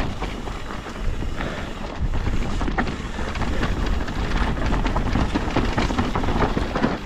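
Mountain bike riding down a dirt and rock trail: tyres rolling and the bike rattling, with frequent short knocks as it rides over rocks and bumps, and wind buffeting the microphone.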